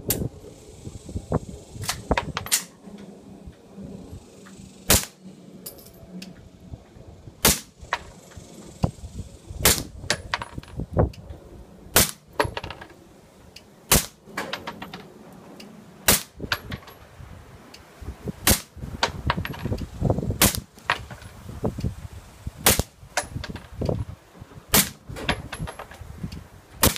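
Suppressed shots from a Glock 19 9mm pistol fitted with a SilencerCo Osprey 45 suppressor, fired one at a time about every two seconds, each a sharp crack. Fainter cracks come in between.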